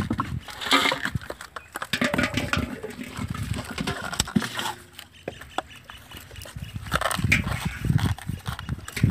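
Split coconut halves knocking and clattering as hands pick them up and pry at them, in a run of irregular hard clicks and knocks.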